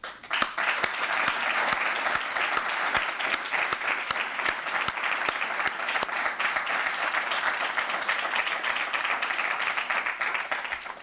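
Audience applauding steadily, a dense clatter of many hands clapping that starts at once and stops fairly suddenly near the end.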